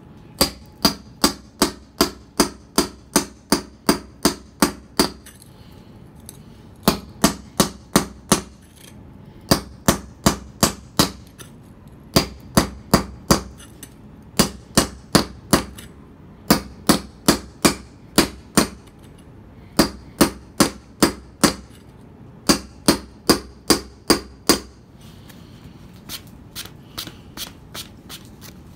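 Hammer striking a mason's chisel held on a concrete paver to cut it, sharp ringing metallic strikes about three a second in runs of several strokes with short pauses. Near the end the taps turn lighter and fainter.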